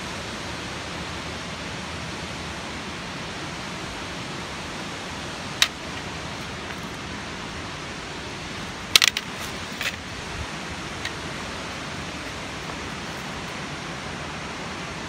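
Steady rush of water from the dam outflow, with one sharp click about five and a half seconds in and a short cluster of clicks around nine seconds.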